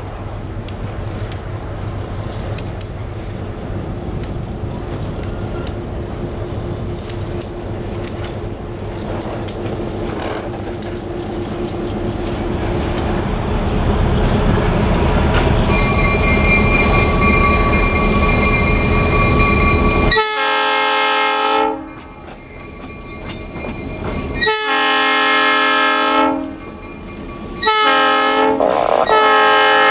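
Diesel-hauled freight train approaching, its locomotive and wheels making a low rumble that grows steadily louder. About two-thirds in, the locomotive's air horn sounds three long blasts for a road crossing, the last still sounding at the end.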